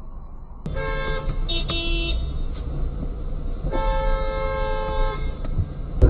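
Car horn honking in traffic: several short honks, then one long honk of about a second and a half, over low road noise.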